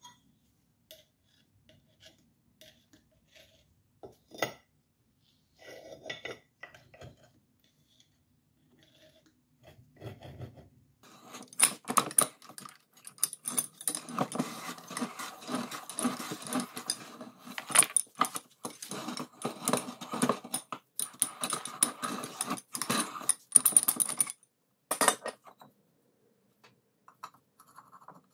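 Metal hoist spindle parts being handled and worked on: scattered light clinks, then from about eleven seconds in a dense stretch of metal-on-metal clinking and scraping that stops near the end.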